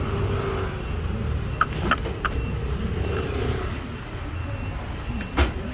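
Steady low rumble of road traffic in the open air, with a few short clicks about two seconds in and another near the end.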